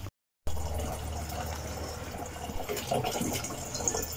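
Water running from a hose into a plastic-bottle poultry waterer, filling it with a steady flow, after a brief silent gap just after the start.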